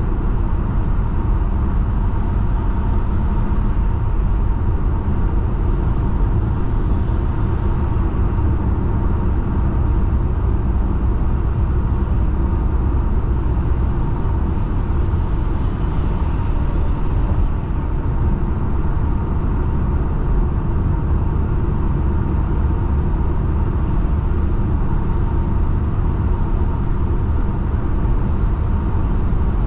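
Car driving at highway speed: a steady, low-heavy rumble of road and engine noise with no breaks, and a faint steady high tone running through it.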